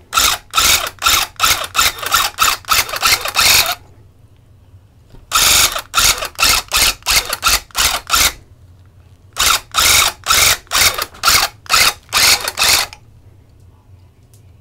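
Electric tufting gun running in three bursts of a few seconds each as it punches yarn into the rug backing, each burst a fast, even pulsing rhythm, stopping briefly between passes.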